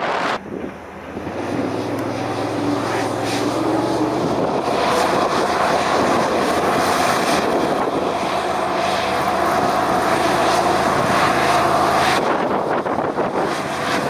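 Hovercraft's 160 hp thrust engine and propeller running steadily as the craft moves over sand. Near the end it gives way to wind noise on the microphone.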